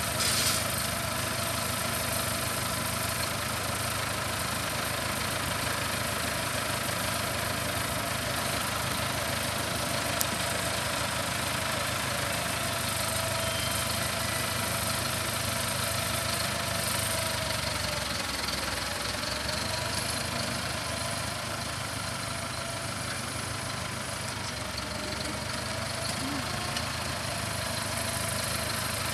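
Ford New Holland 6610's four-cylinder diesel engine running steadily at low speed, its pitch dipping and recovering slightly twice in the second half.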